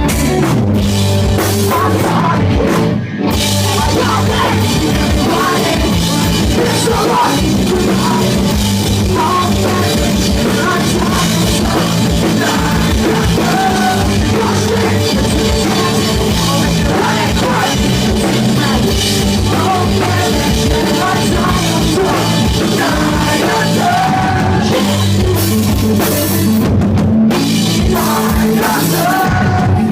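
Pop-punk band playing live: drum kit, guitars and bass under a singing voice, loud and steady, with a brief break in the music about three seconds in. Recorded on a phone's microphone.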